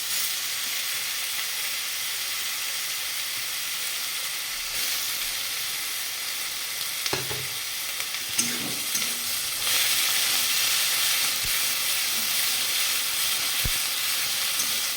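Garlic paste frying in hot oil with bay leaf and cumin, a steady sizzle, with a few knocks of the stirring utensil against the pan near the middle. The sizzle grows louder about two-thirds of the way through.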